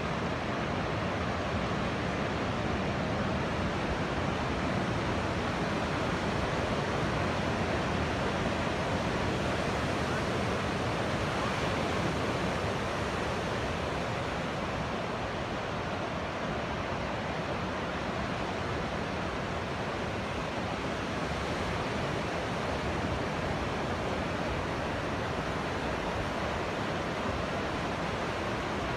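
Ocean surf breaking and washing up a sand beach: a steady rushing noise with no distinct single crashes.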